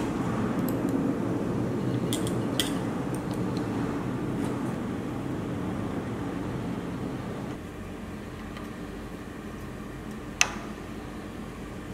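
Light metallic clicks and clinks from hands adjusting the terminal feed and applicator of an EW-09 terminal crimping machine, with one sharp click about ten seconds in. A steady hum runs underneath and grows quieter about seven and a half seconds in.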